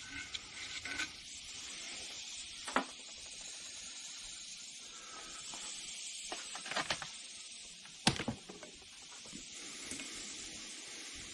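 Steady faint hiss with a few sharp clicks and knocks, the loudest about eight seconds in, as a flux brush and a soldering iron are worked over a steel aerosol can clamped in a vise. Near the end the hot iron touches the fluxed spot on the can.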